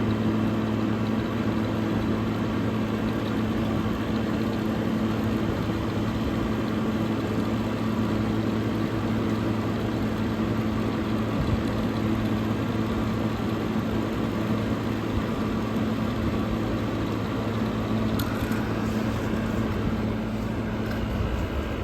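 1958–1963 GE Series 1 Thinline room air conditioner running: a steady electric motor hum under fan and airflow noise. About eighteen seconds in, a faint higher whine and a few light ticks join it.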